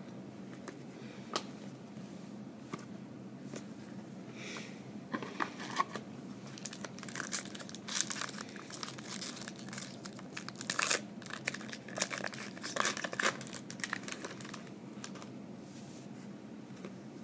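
Wrapper of a trading-card pack being torn open and crinkled, in bursts of crackling that come and go through the middle of the stretch.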